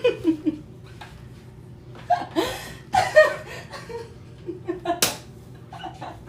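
A single sharp smack about five seconds in, among short bursts of voices and laughter.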